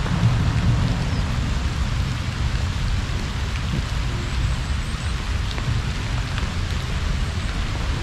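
Heavy rain falling steadily, with scattered raindrop ticks over a steady low rumble.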